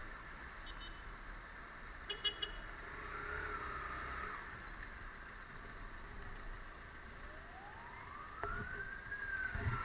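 A siren wailing, its pitch slowly rising and falling in long sweeps, one long sweep near the end. Under it is a low rumble of traffic.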